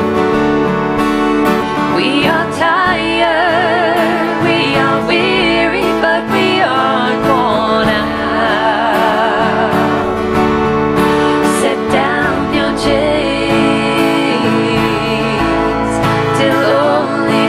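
Women's voices singing a slow song in harmony with vibrato, over sustained instrumental accompaniment.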